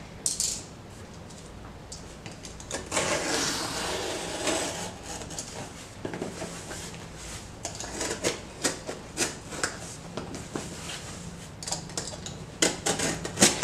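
Cardboard shipping box being handled and opened by hand: a stretch of rubbing and scraping on the cardboard, then a run of short scratches and ticks as the packing tape is worked loose.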